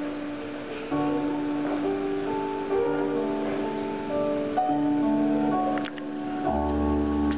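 Music: a keyboard instrument playing slow, held chords that change every second or two, with a low bass note coming in near the end.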